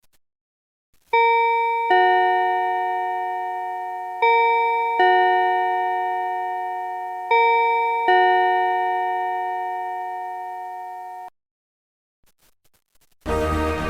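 TYY scheduled music-clock chime playing its two-note "ding-dong", a higher note then a lower one, three times over. Each note rings on and fades, and the chime cuts off abruptly about eleven seconds in. Near the end, band-style march music starts.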